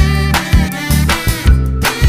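Background music: an upbeat soul-funk track with a heavy bass line and a steady drum beat.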